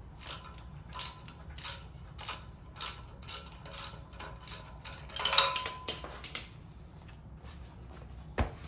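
Metal clicks from hand-tool work: a run of evenly spaced sharp clicks, about three a second, with a louder clatter and a brief metallic ring about five seconds in, then a single sharp knock near the end.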